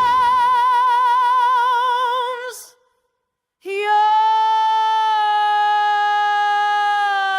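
A high female voice singing unaccompanied, holding one long note with wide vibrato that fades out about two and a half seconds in. After a second of silence a second long note comes in, held steadier and a little lower.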